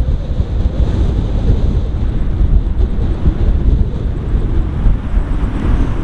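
Strong gusty wind buffeting the microphone: a loud, uneven low rumble that covers everything else.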